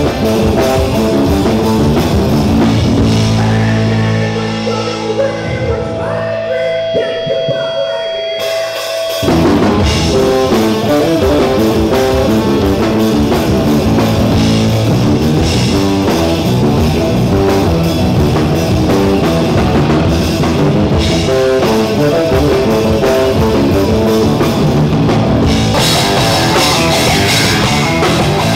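Rock band playing loud, with drum kit, electric bass and electric guitar. A few seconds in, the drums and cymbals drop out while held low notes ring on, and the full band comes back in about nine seconds in.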